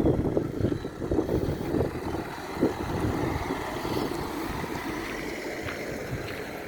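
Wind buffeting the microphone in irregular gusts, a low rumble that eases off slightly toward the end.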